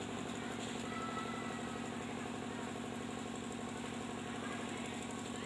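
A steady mechanical drone, like an engine or motor running evenly at idle, with no change in pitch or level.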